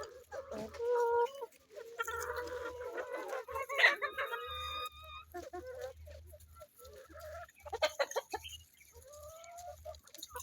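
Hens clucking and calling, a series of drawn-out and short pitched calls with scattered pecking clicks.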